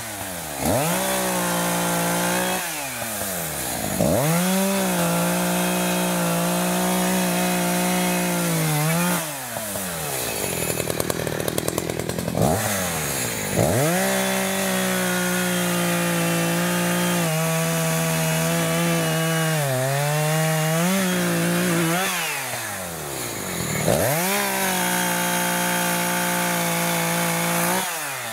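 New ECHO CS-590 Timber Wolf two-stroke chainsaw, still being broken in, cutting through fallen logs. It revs up to full throttle about four times, holding a high steady pitch that sags briefly under load, and drops back to idle between cuts.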